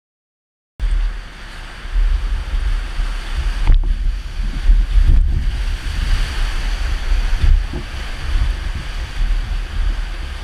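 Whitewater rapid crashing around an inflatable raft, with heavy wind rumble on the microphone; the sound cuts in about a second in and surges as the raft plunges through the waves.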